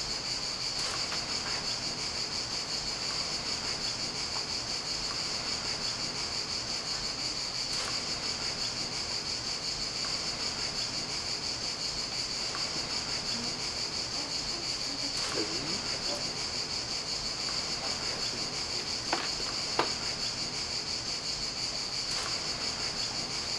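Cicadas singing steadily in one continuous high-pitched buzz. A couple of faint knocks come about four-fifths of the way through.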